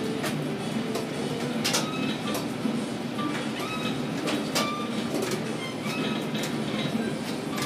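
Container gantry crane machinery running: a steady rattling rumble of steel wheels on rails, with scattered sharp clicks and a few short high squeaks.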